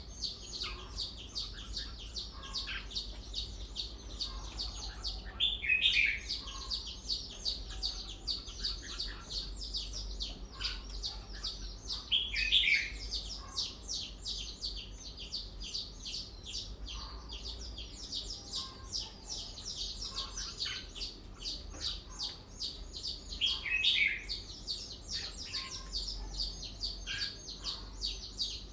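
Red-whiskered bulbul singing: three loud, short warbled phrases spaced several seconds apart, over a constant stream of rapid high-pitched chirping.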